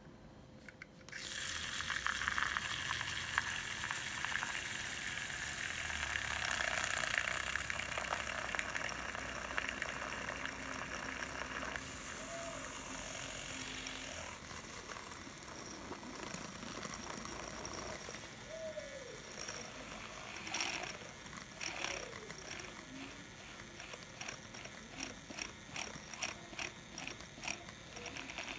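Rechargeable handheld whisk (milk frother) whirring as it whips dalgona coffee mixture in a small glass, switching on about a second in. The sound changes around halfway as the mixture froths up, and near the end it goes into a quick rhythmic ticking.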